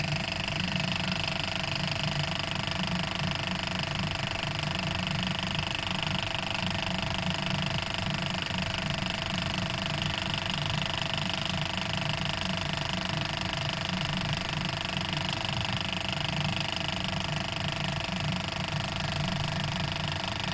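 A steady machine hum: a low rough buzz with several steady higher tones over it, unchanging in level.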